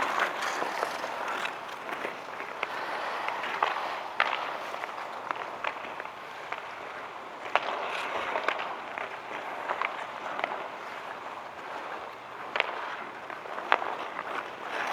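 Outdoor ice hockey game ambience: a steady murmur of the crowd and rink, with scattered sharp clacks of sticks and puck.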